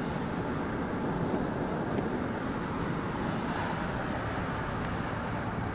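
Steady road and engine noise heard from inside a car's cabin.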